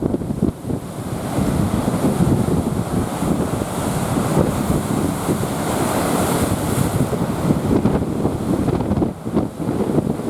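Rough typhoon sea: heavy surf breaking and washing in a continuous roar, with a brighter hissing wash of white water swelling about halfway through. Strong wind buffets the microphone throughout.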